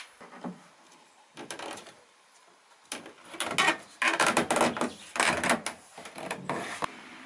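Irregular knocks, scrapes and rubbing as hands fit a wooden block against a car's metal door frame and rubber seal. A few short clatters come first, then a busier stretch of handling noise from about three seconds in.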